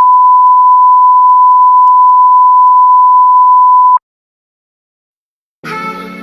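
A loud, steady electronic beep at a single high pitch, held for several seconds and cutting off abruptly about four seconds in. After a short silence, music begins near the end.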